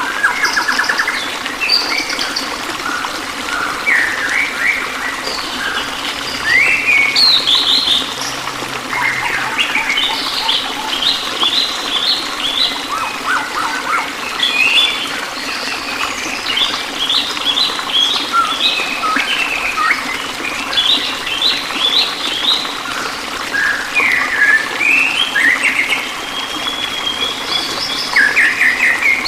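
Songbirds chirping and singing continuously, overlapping calls and fast trills of quickly repeated notes, over a steady low rush of running water.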